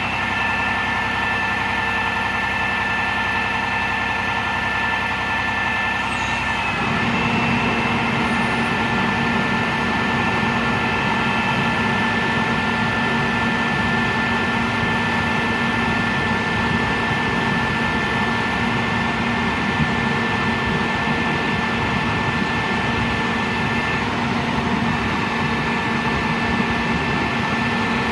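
Diesel engine of a 2006 Oshkosh F-2146 bucket truck running steadily while the Terex aerial boom is raised and extended, with steady high-pitched whines over the engine. About seven seconds in the sound grows fuller and deeper, and one high whine stops a few seconds before the end.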